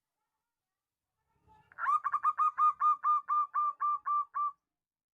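Zebra dove (perkutut) cooing: a quick run of about a dozen short, clipped notes, about four a second, starting a little under two seconds in.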